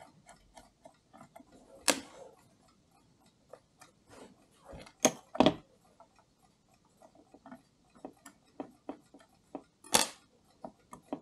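A mechanical clock ticking steadily, about three ticks a second, with a few sharper metal clicks and knocks from a screwdriver and tweezers working on a brass clock movement, the loudest about 2, 5 and 10 seconds in.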